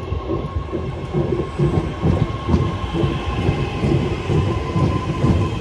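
Class 323 electric multiple unit arriving along the platform: a steady rumble of wheels on rail with irregular knocks, and a faint steady high whine.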